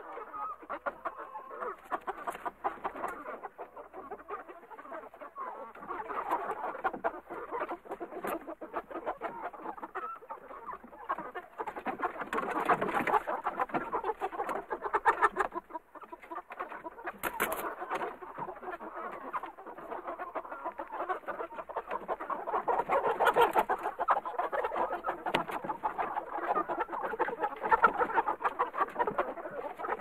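A busy chicken coop: many hens clucking and calling at once in a continuous, overlapping din that rises and falls in loudness.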